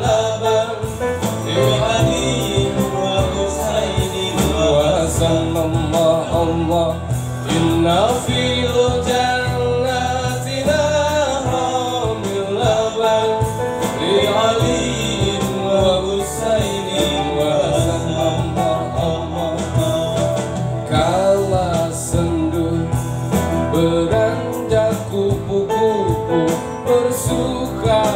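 Live band music with a male voice singing over a steady beat and bass.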